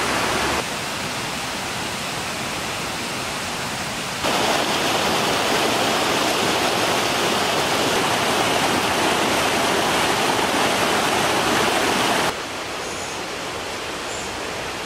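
Clear mountain stream rushing over rocks in a steady, even wash of water noise. It gets louder and brighter about four seconds in, over the close view of water pouring past mossy rocks, and drops to a softer hiss near the end, with a couple of faint high chirps.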